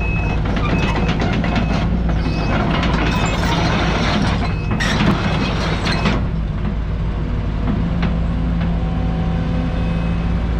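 Sumitomo SH210-5 hydraulic excavator's diesel engine running steadily. For the first six seconds a hissing layer sits over it, then drops away.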